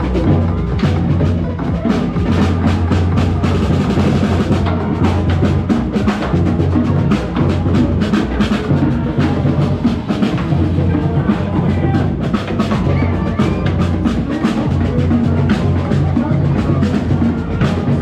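Marching band playing, with drums to the fore keeping a steady beat.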